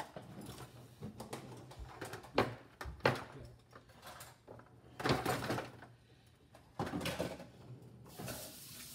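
Intermittent knocks and clatter of objects being handled in a kitchen, a few seconds apart, with a steady hiss starting near the end.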